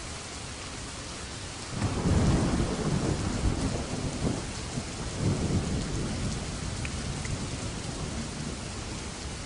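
Steady rain with a roll of thunder that breaks in about two seconds in. The thunder rumbles in several swells and fades away over the next few seconds.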